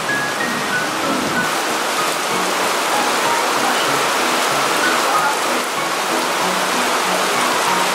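Steady rain falling, a dense even hiss, with background music of short held notes over it.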